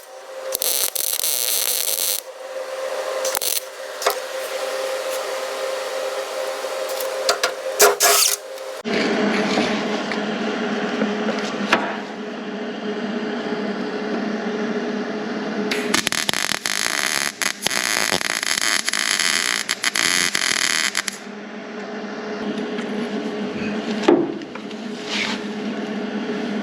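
MIG welder laying welds on 18-gauge sheet steel, a dense crackling sizzle that runs in several long bursts with short breaks between.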